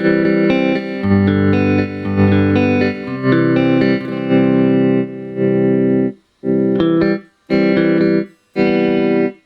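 Electric guitar chords played through a Merak Tremolo Boost pedal on its square-wave setting at slow speed, the volume chopping up and down in even pulses about once a second. Near the end the signal drops out completely between pulses.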